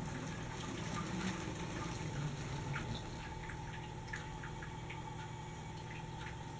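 Lego 60051 high-speed passenger train running on plastic track: a low steady whir from its Power Functions train motor, with light, irregular clicks and ticks from the wheels crossing the track joints and switch points.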